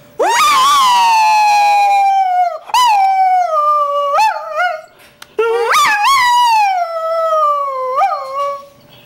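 Greyhound howling: two long howls, each rising sharply at the start and then sliding slowly down in pitch, broken by short upward yelps.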